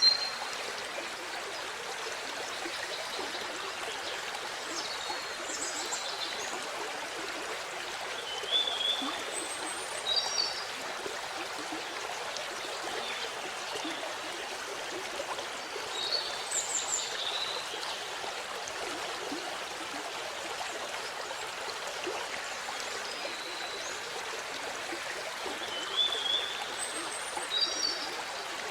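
Steady rush of water from a small waterfall, an even hiss with no changes, with birds chirping briefly in short high calls several times over it.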